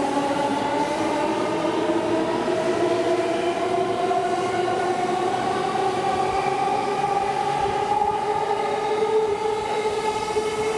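Electric commuter train pulling out of a station, its traction motors whining in several steady tones that rise slowly in pitch as it gathers speed, over the rumble of the cars.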